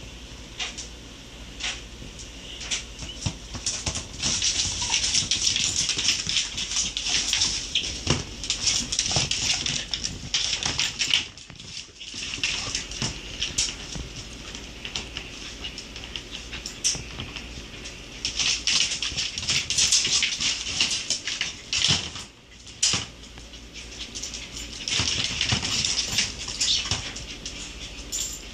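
A dachshund's claws clicking and skittering on a vinyl kitchen floor in quick runs as it scrambles around, with a few sharper knocks between them.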